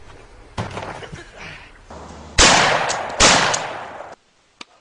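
Two loud gunshots from a shoulder-fired long gun, about three-quarters of a second apart, each trailing off in a long noisy decay.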